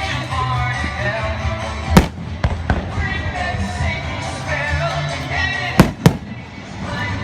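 Fireworks going off over music with singing: one loud bang about two seconds in, two smaller pops just after, then two loud bangs in quick succession near the six-second mark.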